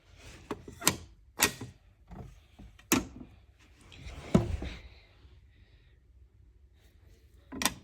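Dolls and dollhouse pieces being handled and set in place: about five sharp knocks and clicks spread apart, with a short scraping rustle about four seconds in.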